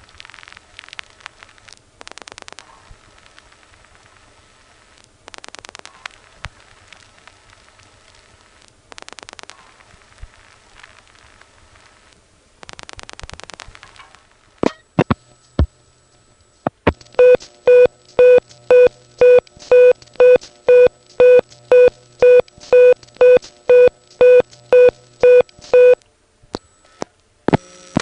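Rotary dial pulses clicking over a hissy 1970s payphone line as the digits 516 and 660 are dialled, with the longest click train for the 0. The line then clicks a few times, and a loud tone switching on and off about twice a second comes back from the 660 test number, followed by hang-up clicks near the end.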